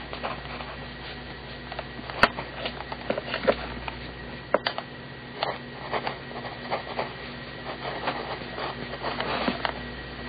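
0.7 mm BIC mechanical pencil writing on paper: the lead scratches in many short, uneven strokes. A sharp click comes about two seconds in and another a little after four and a half seconds, over a steady low hum.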